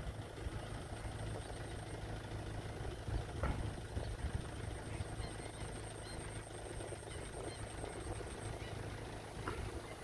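Steady low hum of a distant motor over an even rumbling background.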